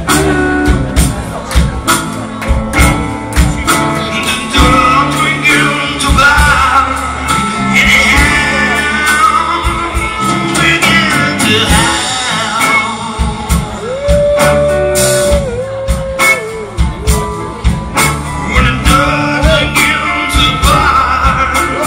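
Live band playing a slow blues, a male voice singing over electric guitars, bass and a steady drum beat.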